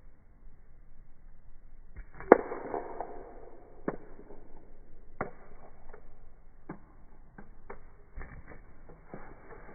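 A 3D-printed plastic cube thrown down onto hard ground, hitting with one sharp crack a couple of seconds in, followed by a scatter of lighter knocks and clicks.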